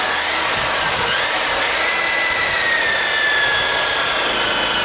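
DeWalt rotary buffer running steadily at high speed, about 3,000, spinning a wool pad to throw the grit out of it, with a steady motor whine.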